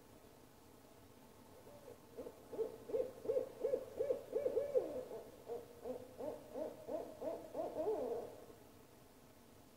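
An owl calling in a long run of quick hoots, about three to four a second, lasting some seven seconds. In the second half some notes slide upward.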